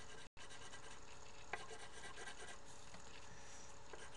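Colored pencil rubbing and scratching on paper in quick shading strokes, faint over a steady hiss. The sound drops out completely for a split second near the start.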